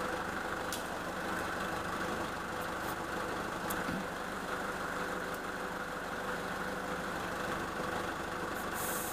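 Nissan Patrol's 3-litre ZD30DI four-cylinder turbo-diesel idling steadily, with a few faint clicks over it.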